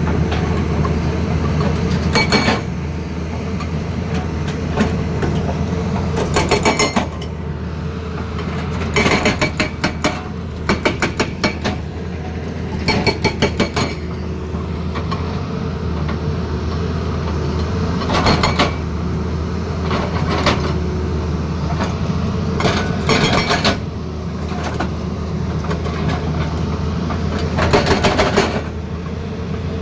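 Excavator-mounted hydraulic breaker hammering in short bursts of rapid blows, about eight bursts of half a second to a second each. Under them the excavator's diesel engine runs steadily.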